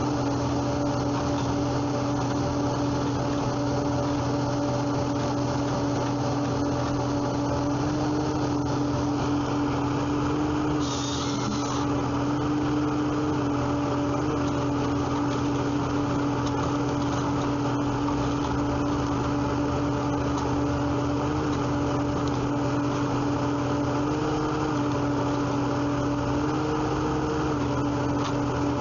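Wood-processing machinery running steadily, with a constant drone and a steady whine that shifts slightly in pitch a few times. There is a brief hiss about eleven seconds in.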